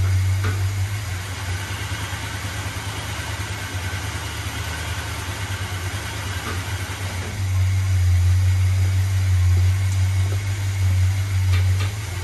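1981 GMC pickup truck's engine idling steadily, easing off for a few seconds and then running louder again from a little past halfway.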